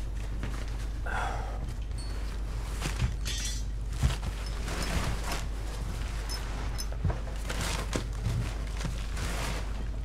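A few scattered light knocks and thumps with faint rustling over a steady low hum, the sharpest knock about four seconds in.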